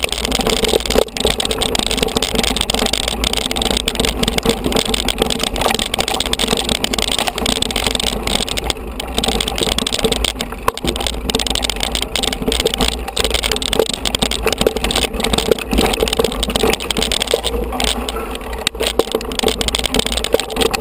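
Mountain bike ridden down a rough dirt trail: steady tyre noise on dirt and stones, with many small rattles and knocks from the bike over the bumps.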